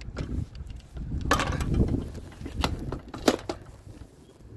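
Rivet gun setting 3/16-inch rivets into an awning torsion end cap: a short burst of hiss about a second in, then two sharp clicks, with tool-handling clatter.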